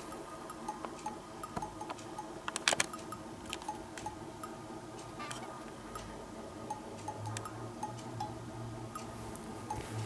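Background music: a light, plinking tune of held notes with ticking percussion. A short clatter sounds between two and three seconds in.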